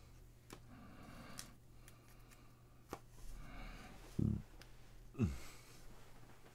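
Trading card and plastic sleeve being handled, with faint rustling and small clicks. Two soft low thumps about four and five seconds in are the loudest sounds.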